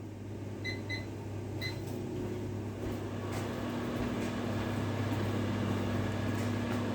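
1500-watt microwave oven: three short keypad beeps, then from about two seconds in the oven runs with a steady hum.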